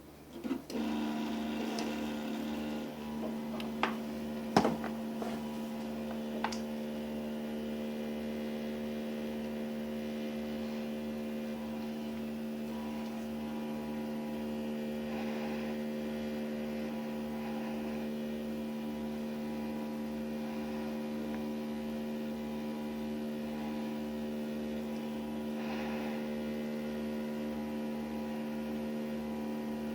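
Hot air soldering station's blower running with a steady hum as it heats a laptop's AMD Radeon graphics chip to reflow its solder balls. It comes on about a second in, with a few clicks and knocks over the next several seconds.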